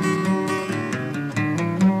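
Background music: a strummed and plucked acoustic guitar.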